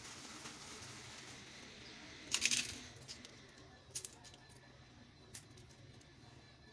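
Fried papri crisps crackling and clicking under fingers as they are arranged on top of chickpea chaat: a short cluster of crackles a little over two seconds in, then a few single clicks.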